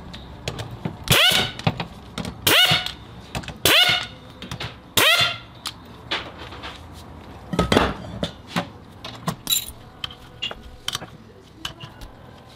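Four short, pitched bursts of a small power tool spinning up, evenly spaced about a second and a half apart, followed by one more burst, with light clicks and knocks of metal parts being handled between them.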